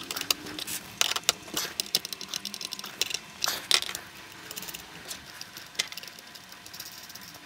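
Small metal parts clicking and clinking irregularly as the bolts, nuts and copper electrode pieces of a DIY battery-tab spot welder's electrode assembly are handled and screwed together by hand.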